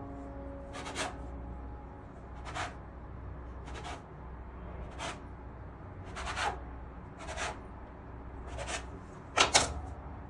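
Metal bench scraper scraping against a floured worktop while cutting and separating sourdough ciabatta dough: about nine short scrapes, roughly one a second, with the loudest two close together near the end.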